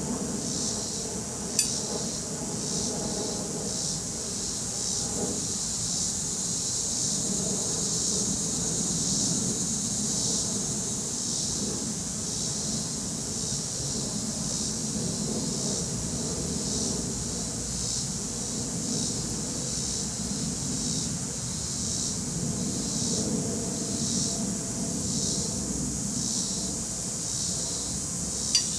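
Russian honey bees humming around an opened hive, with crickets chirping in a steady, regular pulse over it. A sharp click sounds about two seconds in and another near the end.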